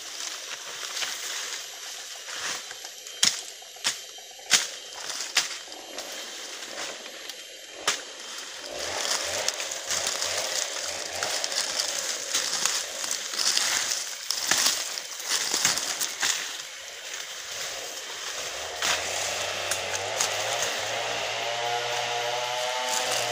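Rustling through forest undergrowth with several sharp snaps of twigs in the first seconds. About 19 seconds in, a two-stroke chainsaw starts idling, and it begins to rev up near the end.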